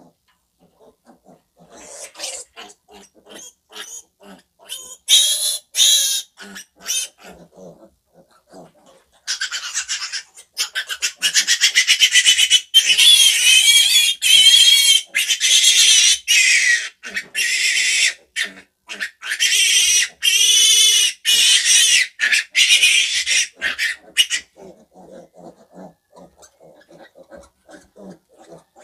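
A piglet squealing as it is held for an intramuscular injection: a few short squeals in the first seconds, then long, loud, high-pitched squeals with a wavering pitch from about nine seconds in until about twenty-four seconds, then dying down to soft, short sounds.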